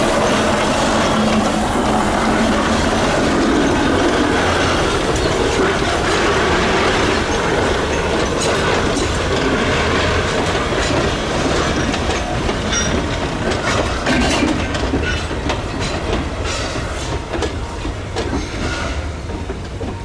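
A narrow-gauge train hauled by a Shay geared steam locomotive running past, a dense rumble with wheels clicking over the rail joints. The clicks grow more distinct in the second half as the sound slowly fades.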